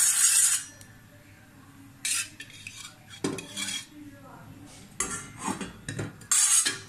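A spoon scraping against a stainless steel frying pan as ghee is spooned in and spread, in about five short strokes, the loudest at the start and near the end. The pan is not yet hot enough to sizzle.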